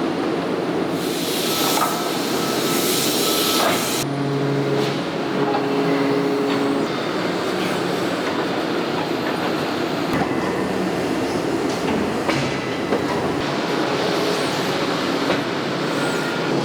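Bearing factory machinery running with a steady, even din. A loud hiss comes in about a second in and stops abruptly about three seconds later, with a few sharp clicks scattered through.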